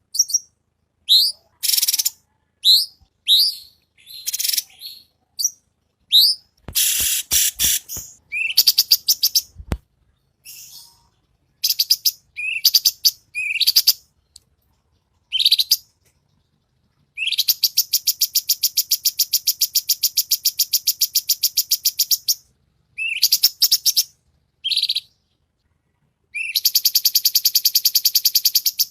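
Cucak cungkok singing: a string of short, rising whistled notes, then a run of clicky notes, then two long, rapid, buzzy trills, one lasting about five seconds midway and another starting near the end. These are the fast, close-packed 'tembakan' bursts that keepers prize in this bird's song.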